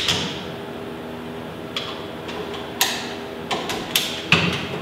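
Handling PEX tubing and its fittings: about five sharp clicks and knocks spread over a few seconds, the loudest near the end, over a steady faint hum.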